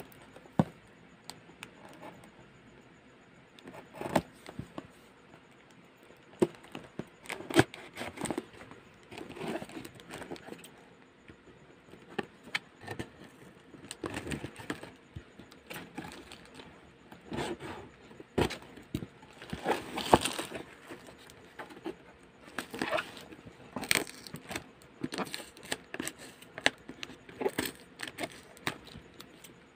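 Cardboard shipping box and plastic wrapping being handled and opened by hand: irregular scrapes, taps and crinkles, busier and louder in the second half.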